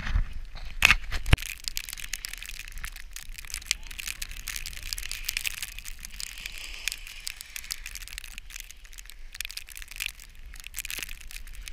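Snowboard sliding over groomed snow, a continuous crunchy scraping with crackles from the board's base and edges. A couple of sharp knocks come about a second in.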